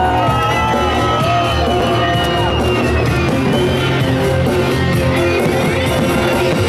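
Loud music with held and gliding notes, with a crowd's shouts underneath.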